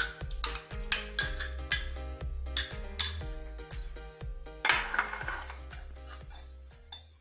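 Background music with a steady beat and bass line that fades out near the end.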